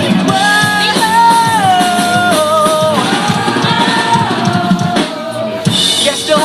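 A live rock band playing, with drums under a melody of long held notes that step down in pitch.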